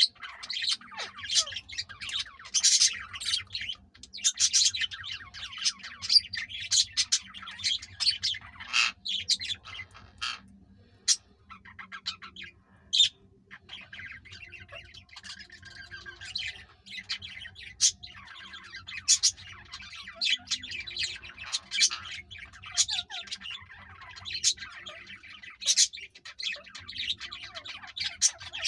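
Indian ringneck parakeets chattering in rapid, high chirps and squawks during courtship, with a quieter spell about a third of the way in.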